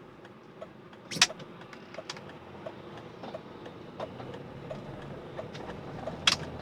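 Cabin sound of a 1998 Mercedes ML320's 3.2-litre V6 running smoothly as the SUV pulls away, with a light regular ticking about every two-thirds of a second and two sharp clicks, one about a second in and one near the end.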